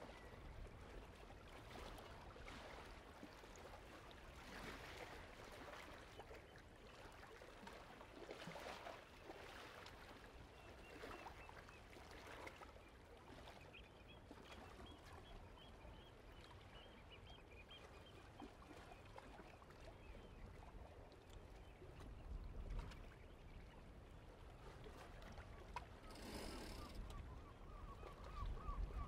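Quiet outdoor ambience of calm water gently lapping. Faint bird chirps come in the middle, and a quick run of repeated bird calls starts near the end.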